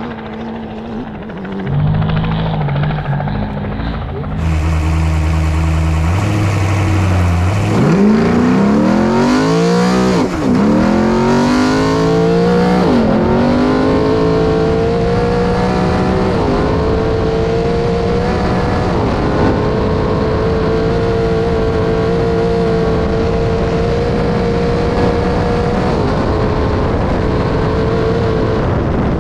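Race truck engine heard on board. It starts with a low, steady drone, then from about eight seconds in it accelerates hard, its pitch climbing and dropping back at three gear changes before holding a steady note at speed.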